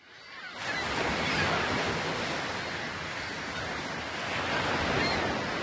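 Ocean surf washing, fading in over the first moment and then holding steady.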